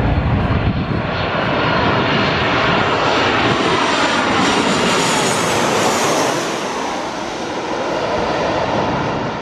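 Jet engines of a Ryanair Boeing 737 on final approach, passing low overhead. The loud engine noise carries a whine that climbs to a peak about six seconds in, then drops in pitch and eases as the airliner goes over and away toward the runway.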